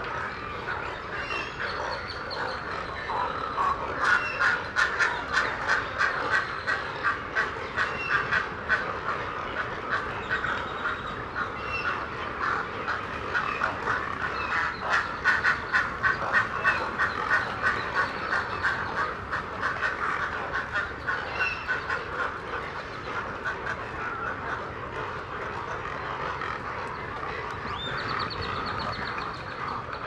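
Chorus of many nesting birds calling at once in a rookery colony. Twice it swells into runs of rapid pulsed calls, several a second, with occasional higher short notes above the din.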